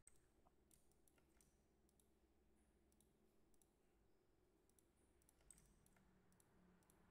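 Near silence with faint, irregular computer mouse clicks.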